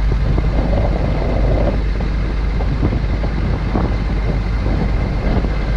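Steady wind noise buffeting the camera microphone, a loud low rumble with no clear calls standing out.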